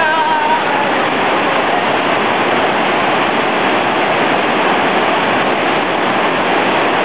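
Loud, steady rush of a fast whitewater river churning through rapids.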